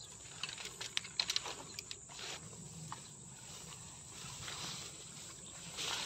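Footsteps pushing through dense weeds and tall reeds, with leaves and stalks rustling and brushing against legs and gear, and scattered small snaps and crackles.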